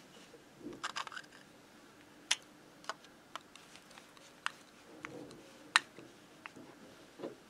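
Screwdriver working the float-bowl screws of a hand-held moped carburettor: scattered small metal clicks and light scrapes, roughly one every half second to second, the sharpest about three-quarters of the way through.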